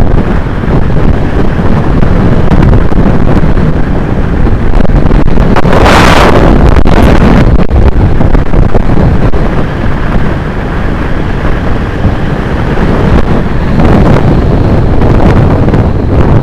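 Heavy wind buffeting on the microphone of a road bike descending at speed, with a brief louder whoosh about six seconds in.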